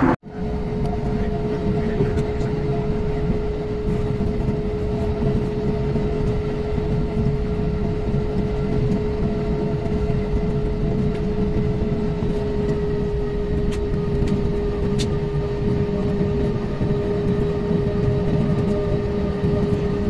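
Cabin noise inside a Finnair Airbus jet taxiing on the ground: a steady rumble under a constant whine from the engines at idle thrust.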